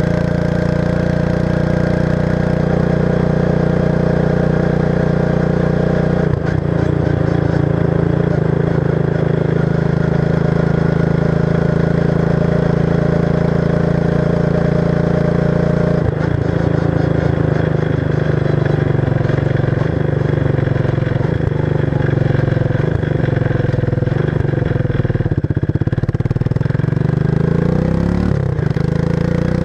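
1994 Suzuki King Quad 300 ATV's single-cylinder four-stroke engine running through its stock muffler with the baffles removed and the insides modified. It runs steadily, its engine speed shifting a little about 6 and 16 seconds in, with a brief dip and rise in pitch near the end.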